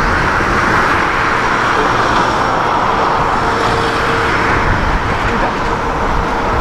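Boeing 747-400 freighter's four jet engines at takeoff thrust as it rotates and lifts off: a steady, loud jet roar with a thin steady tone running through it.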